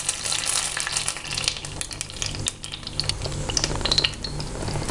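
Hot caramel sizzling as a silicone spatula scrapes it out of a nonstick pan into a glass dish, with many small scrapes and clicks.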